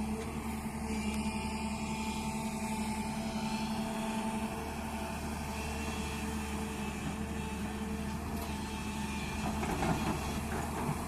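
Heavy construction machine's engine running steadily, with a brief louder, noisier stretch near the end.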